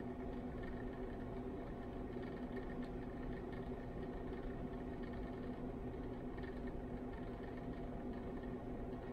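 Steady mechanical hum with a few steady tones, from electric stirring hot plates running with their magnetic stirrers spinning.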